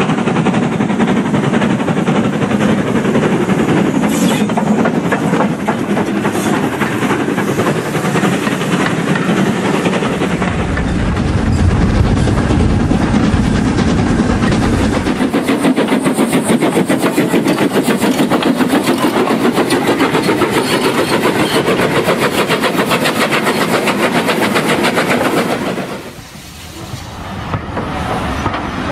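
Model railway train, an LMS Patriot steam locomotive hauling six coaches, running along the layout's track. Its wheels make a fast, continuous clatter on the rails over a low rumble, densest as the coaches pass close by. The clatter drops away sharply a few seconds before the end, then picks up again.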